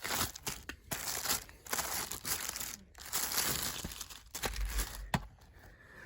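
Packaging crinkling and rustling in irregular bursts as a new portable Blu-ray drive is unwrapped and handled, dying down about four seconds in, with one sharp click near the end.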